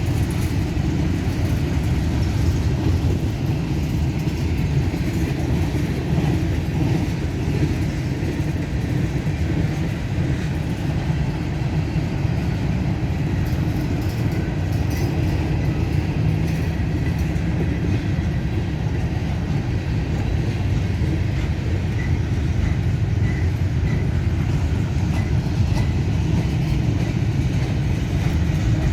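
A CSX freight train's cars rolling slowly past at about 10 mph, a steady low rumble of steel wheels on rail, with a few faint short high squeaks later on.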